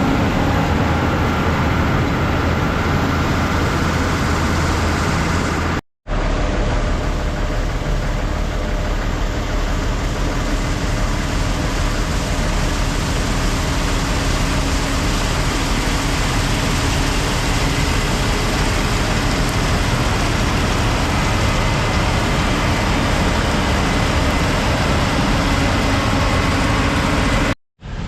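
Heavy farm machinery running with a steady engine drone and mechanical noise. The sound drops out for an instant about six seconds in and again near the end.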